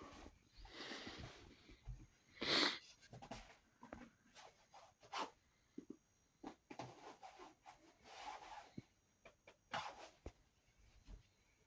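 Cotton T-shirt being pulled and stretched by hand, the fabric rustling in short, irregular bursts as it strains without tearing. Sharp breaths of effort come through, the loudest about two and a half seconds in.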